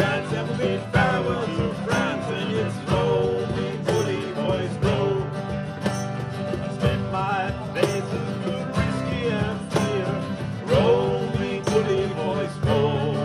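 Two steel-string acoustic guitars strummed in a steady rhythm, with men's voices singing over them.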